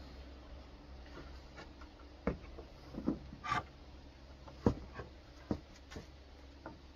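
Scattered wooden knocks and clunks at irregular intervals, from rough-sawn boards being handled and a person climbing down a wooden frame.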